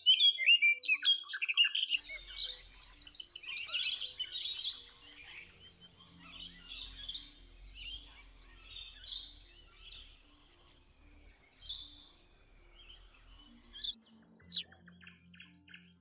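Small birds chirping and trilling in quick high notes, loudest and densest in the first couple of seconds and sparser afterwards, over soft background music.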